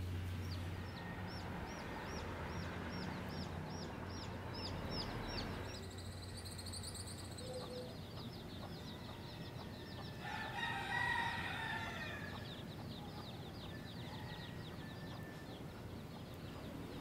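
Chickens: a rooster crows once, about ten seconds in, over a long run of high, rapid peeping from chicks that speeds up partway through.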